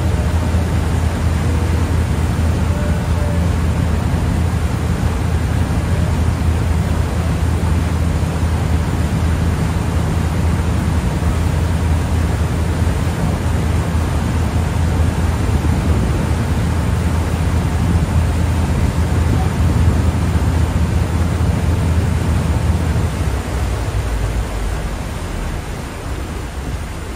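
Passenger ferry's engine running steadily under way, a low drone over the rush of water and wind. About 23 seconds in the drone drops away and the sound gets quieter, as the engine eases off.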